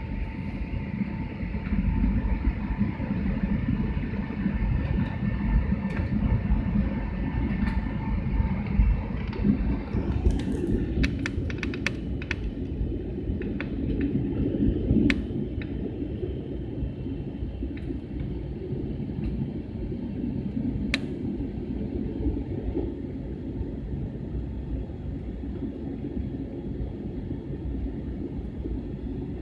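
Airliner cabin noise in flight: a steady low rumble of engines and rushing air, with a faint steady whine above it for the first ten seconds or so. Scattered sharp clicks follow about ten seconds in.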